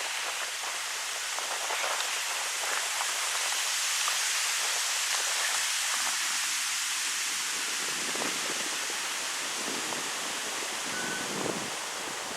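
Wind blowing through birch trees: a steady rustling hiss of leaves that swells a little about four seconds in.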